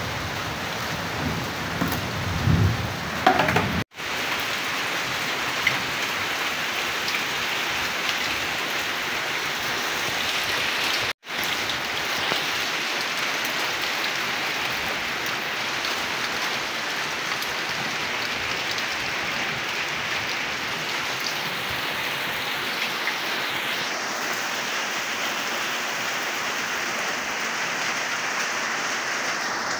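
Heavy rain falling steadily on the ground and foliage, a dense even hiss. A low rumble lies under it in the first few seconds, and the sound cuts out for an instant twice, about 4 and 11 seconds in.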